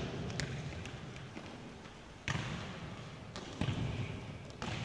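Futsal ball being kicked and bouncing on a sports-hall floor: about five sharp thuds, the first light and the rest heavier, each ringing on in the echoing hall.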